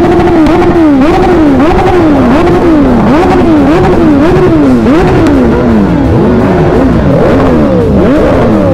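Superbike engines revved over and over in quick throttle blips, the pitch climbing and dropping back about every 0.7 seconds. From about two-thirds of the way in, several bikes rev at once and the revs overlap.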